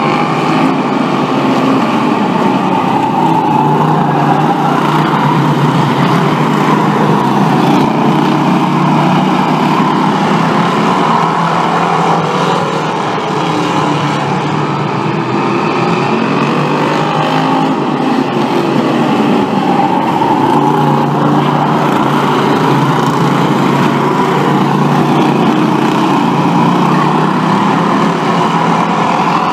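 A pack of Bomber-class stock cars racing on a short oval, their engines running together in a loud, continuous drone. Several times the pitch rises and falls as cars pass through the turns.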